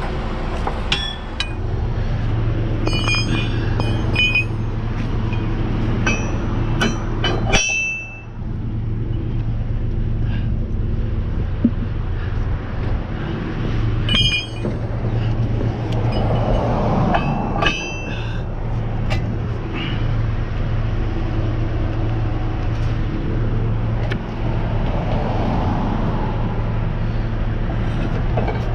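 Truck engine idling steadily, with scattered bursts of ringing metal clinks and clanks from tow gear being handled.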